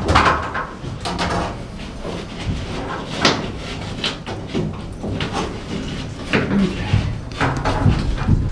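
Sheetrock panel knocking and scraping against wooden ceiling framing as it is pushed up into place overhead: a series of irregular bumps, the sharpest about three seconds in.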